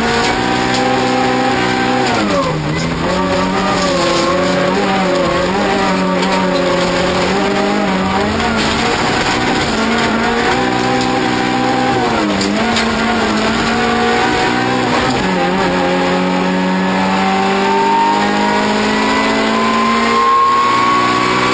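Toyota Corolla rallycross car's engine heard from inside the cabin, running hard at high revs. The revs dip sharply about four times as the driver lifts or shifts, then climb steadily over the last five seconds under acceleration.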